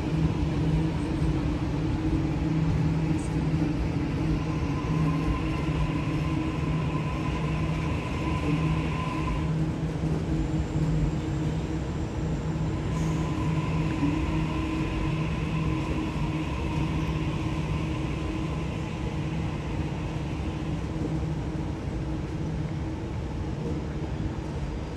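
Sydney Trains Waratah electric train moving slowly through the station yard: a steady low electric hum, with a higher whine that comes in twice and fades.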